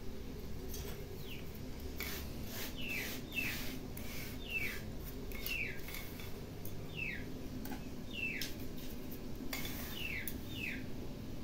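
A bird calling with short falling chirps, often in pairs, repeated every second or two. Under it, soft scraping of a hand sweeping dry ground sesame and rice powder together on a stone grinding slab.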